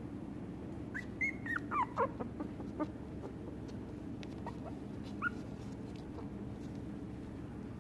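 Shiba Inu puppy whimpering: a quick run of short, high squeaks, mostly falling in pitch, about a second in, then a few fainter single squeaks later.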